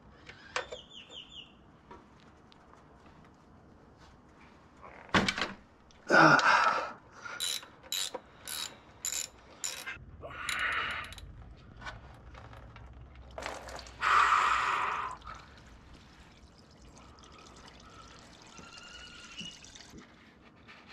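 Ratchet wrench clicking as the oil drain plug is loosened, with a sharp knock of tool on metal, then engine oil pouring and splashing out of the sump into a plastic drain pan in several loud bursts.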